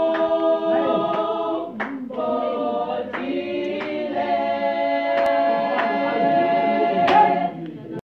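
Youth gospel choir of mixed boys' and girls' voices singing a cappella in several-part harmony, with a few sharp taps now and then; the singing stops abruptly just before the end.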